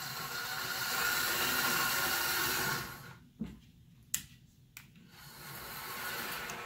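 Small electric motor and gears of an HO scale 0-4-0 switcher locomotive running as it pulls two coaches up a 2.5% grade, cutting off about three seconds in. A few sharp clicks follow, then the motor runs again, swelling as the train backs down in reverse.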